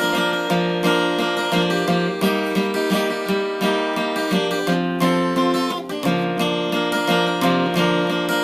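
Acoustic guitar strummed in an instrumental passage of a song, with no singing.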